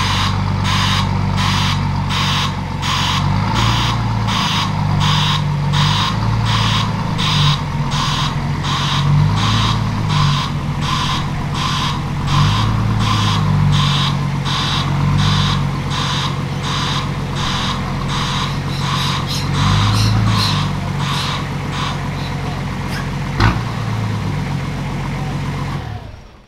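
Nissan Patrol's RD28 2.8-litre six-cylinder diesel engine running at low revs as the vehicle is reversed, its note rising and falling, with a reverse beeper sounding about twice a second. A single sharp knock near the end.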